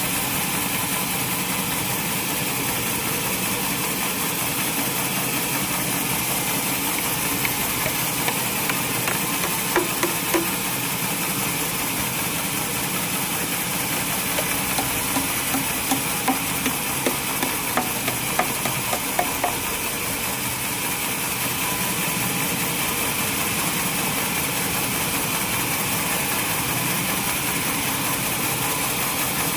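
Sawmill machinery running with a steady, even drone. Two runs of short, sharp knocks, about two a second, come a quarter of the way in and again near the middle.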